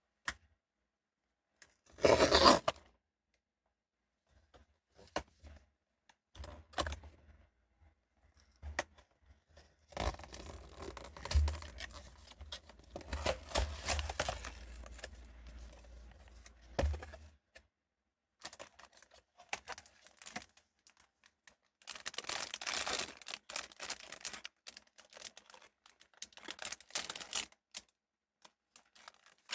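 Toy blind-box packaging being opened by hand. There is a short, loud tear about two seconds in, then on-and-off stretches of packaging crinkling and rustling, with light taps and clicks between.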